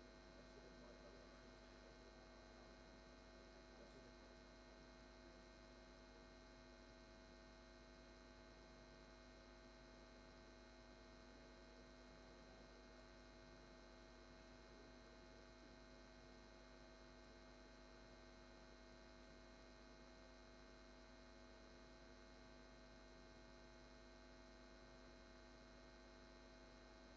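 Near silence: a faint, steady electrical hum made of several unchanging tones.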